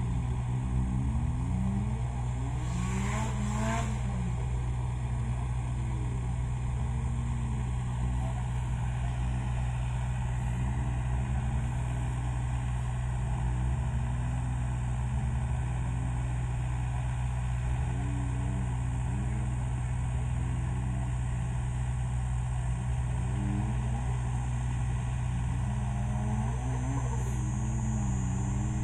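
An engine runs with a steady low drone, its revs rising and falling over and over. There is a brief rush of noise about three seconds in.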